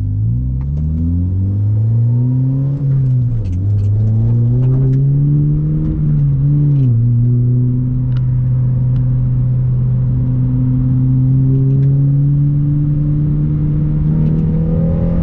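Honda Civic Si's 2.4-litre K24 four-cylinder engine accelerating, rising in pitch with two sharp drops in revs at upshifts about three and seven seconds in, then running steadily and climbing slowly.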